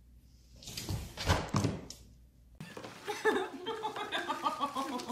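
A toddler tumbling over the back of a leather sofa: a few dull thuds between about one and two seconds in.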